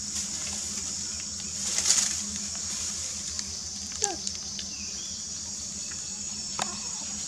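Steady, high-pitched insect buzzing, with a few short clicks and, about four seconds in, a brief squeak that falls in pitch.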